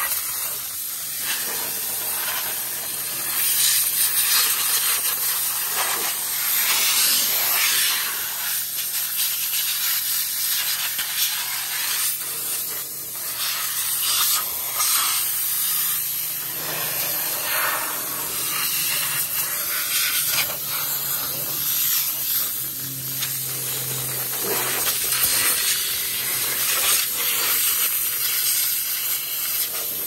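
Wood-Mizer LT40 Hydraulic band sawmill sawing a log: a steady hiss of the band blade in the cut and sawdust being thrown out, over the steady hum of the mill's engine.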